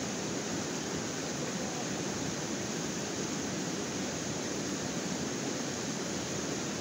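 Steady rush of whitewater from river rapids, an even, unbroken noise.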